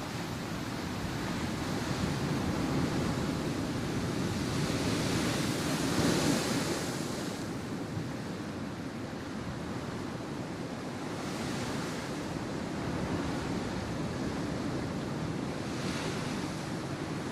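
Sea waves washing in, a steady rush that swells about three times as waves break, the biggest a few seconds in.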